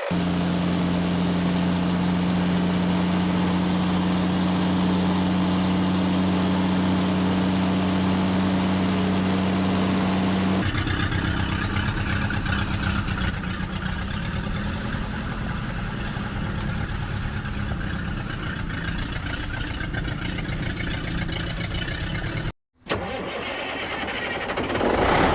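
A motor vehicle engine running: a steady idling hum for about the first ten seconds, then a rougher, rapid chugging. Near the end it cuts out abruptly for a moment before sound resumes.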